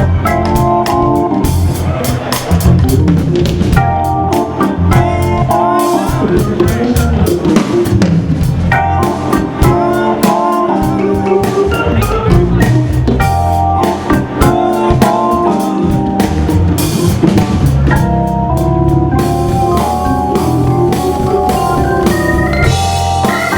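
Live band music: Hammond organ chords and low bass notes over a drum kit groove with frequent snare and rimshot hits.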